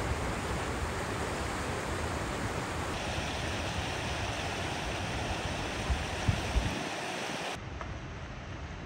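Waterfall rushing: a steady wash of falling water. Its tone changes abruptly about 3 seconds in and again near the end, where it turns quieter and duller, with a few short low thumps on the microphone shortly before.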